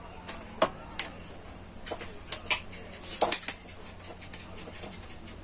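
Plastic leg locks and aluminium leg sections of a 3110 mobile tripod clicking and knocking as the legs are unlocked and pushed in shorter. A handful of separate clicks, with a quick cluster about three seconds in.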